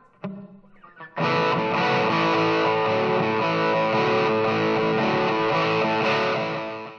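SG-style electric guitar played through an amp with distortion: a couple of short picked notes, then a full chord struck about a second in and left to ring, dying away near the end.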